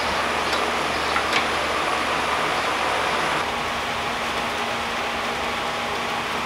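Steady background noise with a low hum, and a couple of faint clicks in the first second and a half.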